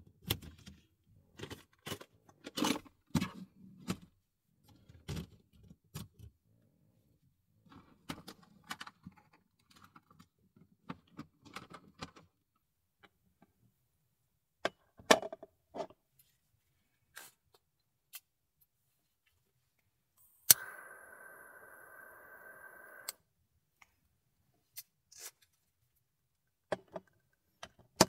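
Small objects handled on a wooden table top in scattered clicks, knocks and rattles as a lid comes off a glass tealight holder. About twenty seconds in a lighter clicks and then hisses steadily for about two and a half seconds while the tealight is lit, followed by a few light taps as things are set down.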